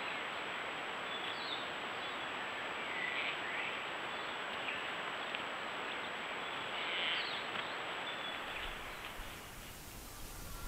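Trail camera's outdoor recording: a steady hiss with a thin high steady tone over it, and three faint bird calls spread through it. Near the end the hiss changes character and a low rumble comes in.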